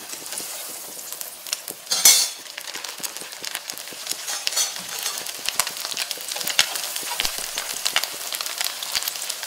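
Hot oil sizzling and crackling in a frying pan as breaded chicken breasts are laid in to fry, with a loud burst of sizzle about two seconds in when the first piece goes in.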